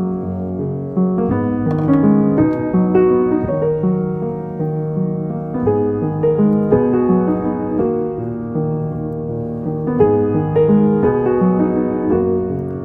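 Background piano music with notes changing in steady steps.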